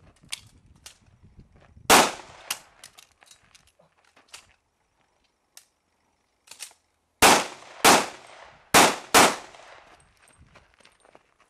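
Pistol shots fired during a practical shooting stage. One loud shot comes about two seconds in, with fainter sharp ticks scattered after it, then four shots in quick succession from about seven seconds in.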